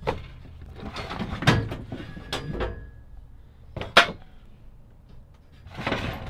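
Rusty tools and loose metal scrap being picked up and shifted in a junk pile: scattered clinks and knocks, with one sharp clank about four seconds in and a longer scrape near the end.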